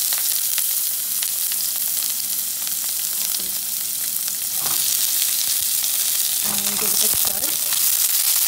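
Chopped onion frying in very hot oil with whole spices: a steady sizzle, with the scrape and tap of a wooden spatula stirring through it.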